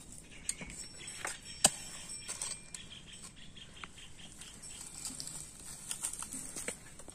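Dry wooden kindling sticks and dried leaves being handled in a brick fire pit: scattered light clicks and rustles, with one sharper knock about a second and a half in. The small clicks go on as the leaves catch fire near the end.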